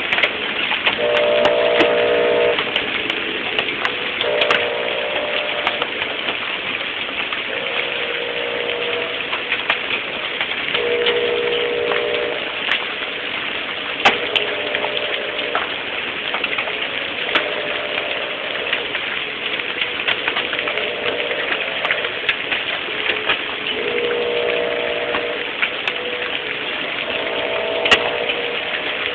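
Hail and heavy rain falling: a steady hiss dotted with sharp ticks of hailstones striking hard surfaces. A pitched tone comes and goes underneath it, about every three seconds.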